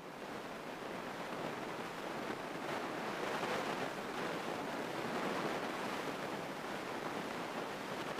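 Steady rushing cabin noise of a single-engine Grumman light aircraft in cruise: engine and airflow blended into an even hiss with no distinct engine note. It swells a little over the first few seconds.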